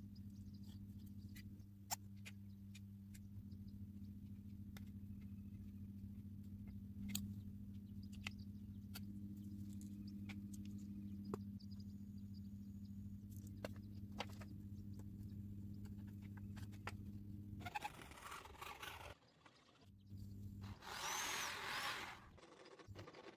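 Steady low electrical hum with scattered light clicks and taps, then two short bursts of harsh, hissing or grinding noise near the end, the second one louder.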